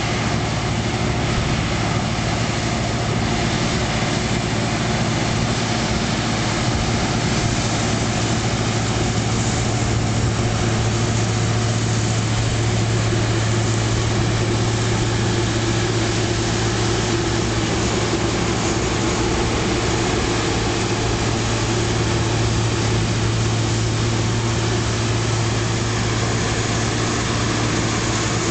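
Claas Mega 360 combine harvester running under load while it cuts and threshes wheat: a steady, loud engine hum mixed with the even clatter and rush of the header and threshing machinery.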